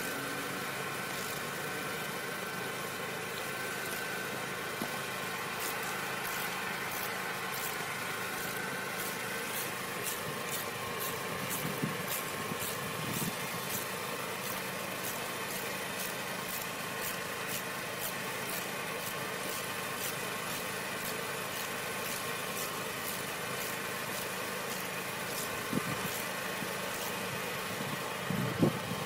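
An engine running steadily at idle under the whole stretch, with a run of light, quick ticks from about five seconds in as a speed-hump anchor bolt is turned down with a hand wrench, and a few dull knocks.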